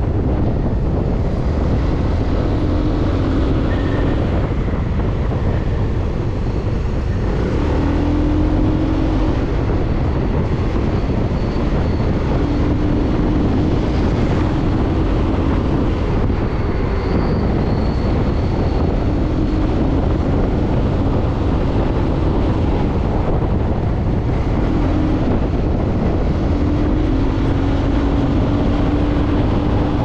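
Motorcycle cruising at about 50 km/h: steady wind rumble on the microphone over the engine's hum, whose pitch drifts a little as the throttle changes.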